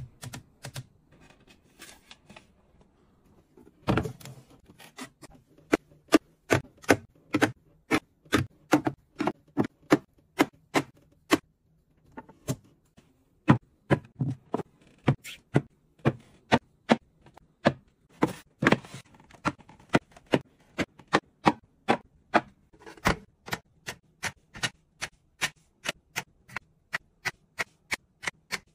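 A rapid series of sharp clicks and taps, about two to three a second, with a short lull partway through: hard objects being handled and set down on shelves.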